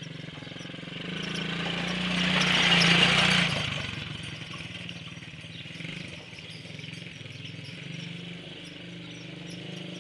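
Small 110 cc quad engine running steadily, growing louder and rising to a peak about two to three seconds in, then falling back to a lower drone.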